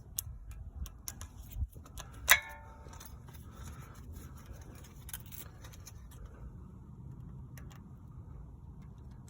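Light metallic clicks and taps of brake hardware being handled as the caliper pins are fitted, with one sharper metal clink that rings briefly about two seconds in.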